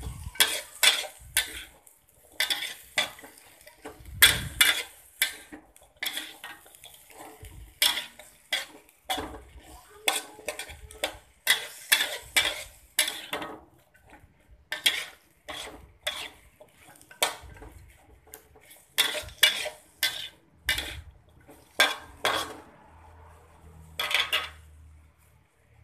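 Broccoli and carrot being stir-fried: a cooking utensil scrapes and clacks against the pan in quick, irregular strokes, about one to two a second. The strokes stop near the end after one last stroke.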